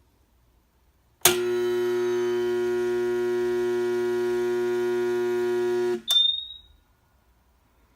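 Husky 10-gallon air compressor's electric motor buzzing loudly with a steady hum for about five seconds without getting going, the sign of a stalled motor failing to start. The buzz then stops abruptly, followed by a sharp click with a brief ringing tone, as the circuit breaker trips.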